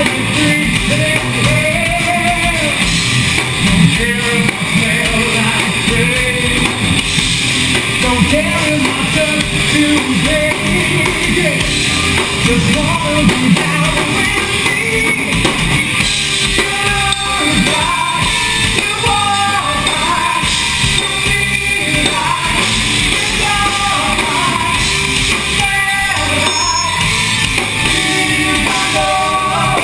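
A rock band playing live and loud: a drum kit and electric guitars, picked up from on the stage.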